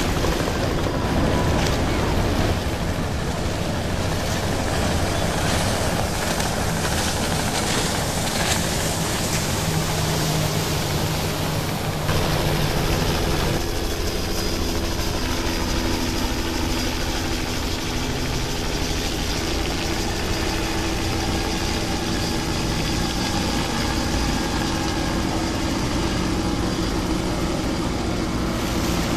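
Wind and water noise, then from about twelve seconds in a boat engine running steadily over the rush of wind and water.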